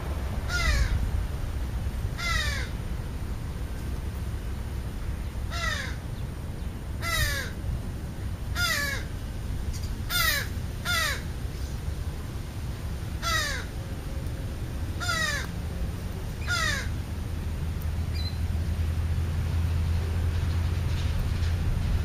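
Crows cawing at a food pile: about ten short, harsh caws, each dropping in pitch, given singly or in quick pairs over the first seventeen seconds, then stopping. A low rumble runs underneath, steadier in the last few seconds.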